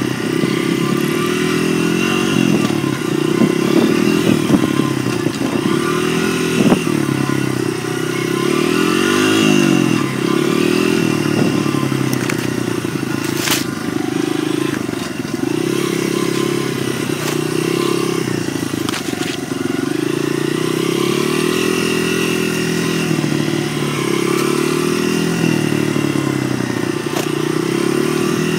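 Dirt bike engine running while being ridden on a trail, its pitch rising and falling again and again as the throttle is opened and closed. A sharp click sounds about halfway through.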